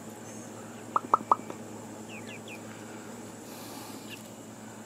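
Young chickens clucking: three quick, short clucks about a second in, then a few faint high chirps.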